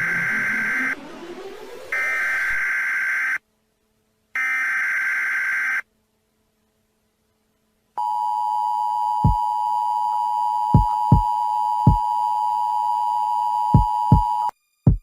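Emergency Alert System broadcast: three buzzy bursts of SAME header data tones with short silences between them, then a pause, then the two-tone EAS attention signal held steady for about six seconds, with several low thumps over it.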